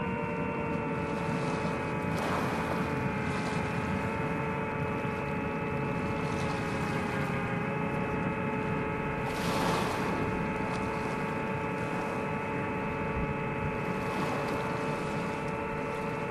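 FPV quadcopter drone's motors and propellers humming steadily in a held, multi-tone whine that barely changes pitch. Brief bursts of rushing noise come about 2 and 10 seconds in.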